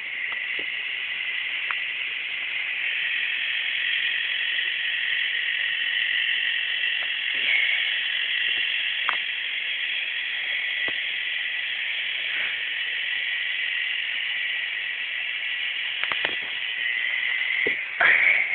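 K'NEX battery motor and plastic gears whirring steadily as the small K'NEX rock crawler creeps slowly along, with scattered light clicks and a louder clatter near the end.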